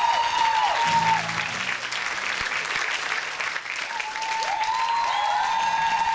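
Audience applauding and cheering at the end of a stage performance, with high held whoops or tones at the start and again from about four seconds in.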